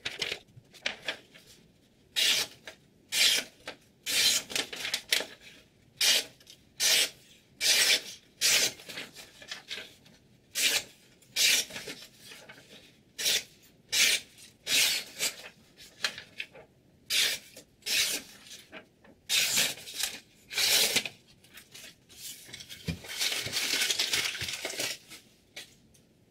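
Chef's knife slicing through a sheet of paper, about twenty short papery strokes roughly a second apart, with a longer rustle near the end: a paper-cutting test of the freshly sharpened edge.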